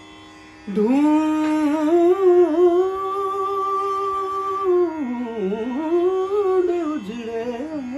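A man singing a ghazal line without clear words over a steady drone: after a short pause he glides up into a long held note, then winds down and back up through ornamented melodic turns.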